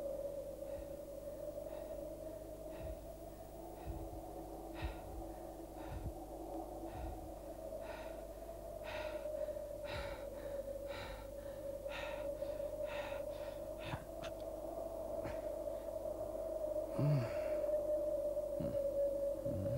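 A steady, slowly wavering eerie drone runs under short sharp breaths from a gagged puppet sailor. The breaths come about once a second and faster in the middle, and there is a short muffled grunt near the end.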